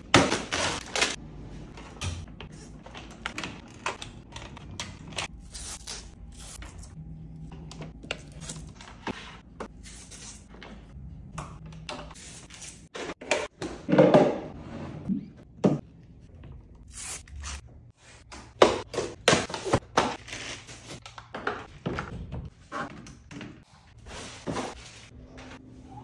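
Irregular handling noises: thuds, knocks and rustling of plastic packaging and cables as electronics are moved around and set up on a TV stand, broken by abrupt cuts.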